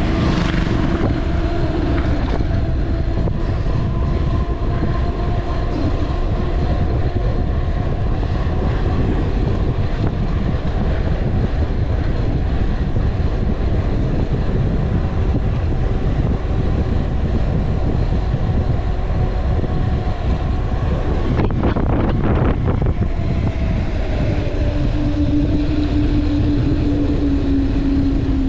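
Wind rushing over a handlebar-mounted camera's microphone and mountain-bike tyres running on asphalt during a fast downhill ride, a loud steady rumble with a faint hum that wavers in pitch. A short rattle comes about three-quarters of the way through.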